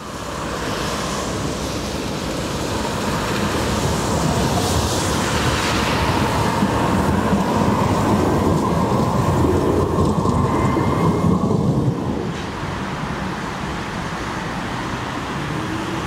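Long articulated low-floor tram passing at street level: steady rumble of wheels on rail and running gear, growing louder as it goes by. About twelve seconds in the sound changes abruptly to quieter, steady street noise.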